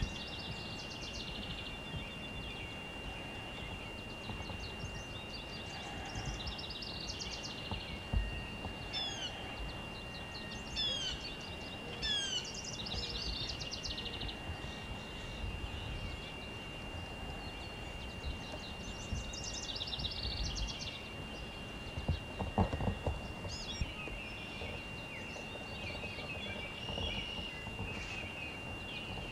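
Songbirds chirping and trilling, with a run of short downward-sweeping calls about a third of the way in. Underneath is a steady low background rumble and a thin continuous high tone, with a few low knocks about three quarters of the way through.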